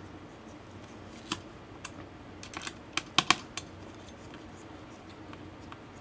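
Scattered small clicks and taps of a precision screwdriver being worked into the CPU heatsink screws of a mini PC. There are about a dozen light clicks, bunched about halfway through.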